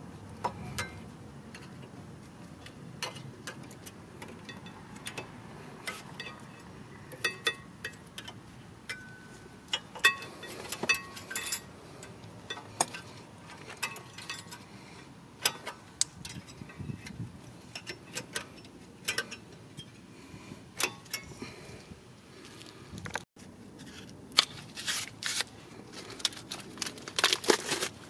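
Light metallic clicks and clinks from the pad retaining clips and brake pads on a 2017 Kia Sedona's rear caliper bracket as they are handled, coming at irregular intervals and growing more frequent in the last few seconds.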